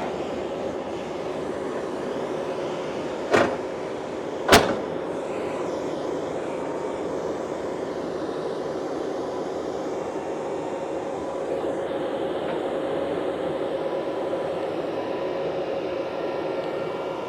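Heavy-equipment engine running steadily, with two sharp knocks a little over a second apart.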